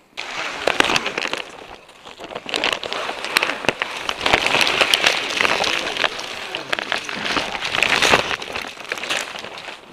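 Vinyl RV awning fabric rustling and crinkling as it is handled and pulled along its rail, a dense crackle with many sharp clicks.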